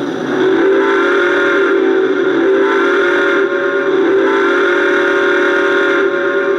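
Sound system of a Lionel Southern Pacific AC-9 2-8-8-4 O gauge model locomotive blowing its steam whistle: two long chime blasts with a short break about halfway through, over a steady hiss.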